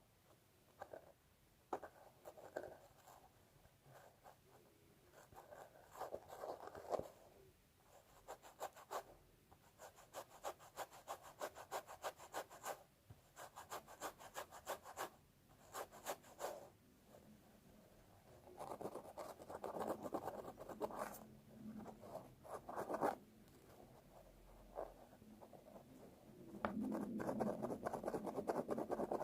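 Fingernails scratching through hair on a scalp in runs of quick, short strokes, with denser, steadier rubbing spells in the second half.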